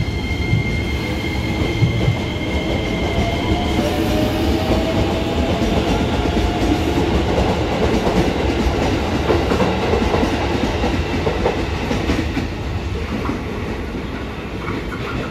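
Ex-JR East 205-series electric commuter train pulling out of a station and accelerating, with a motor whine rising gently in pitch during the first seconds and wheels clacking over the rail joints. The run of wheel noise thins out toward the end as the last car goes by.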